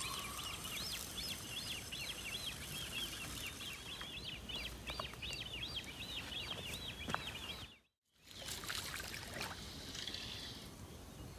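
A small bird calling in a rapid run of short, high chirps, several a second, over faint outdoor background. The chirping breaks off abruptly about eight seconds in.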